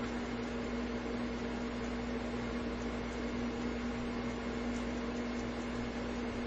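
Steady machine hum in a small room: an even hiss of air over a constant low drone that does not change.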